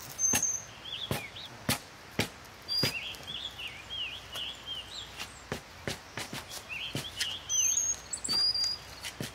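Steel spade chopping repeatedly into lawn turf and soil, sharp irregular strikes about a second or less apart, cutting a trench line through the sod. Songbirds chirp and whistle throughout.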